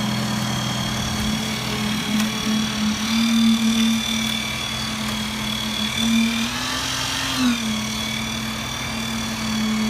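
Concrete pump truck running while it pumps concrete into the footing holes: a steady engine hum whose pitch rises briefly and drops back about seven seconds in.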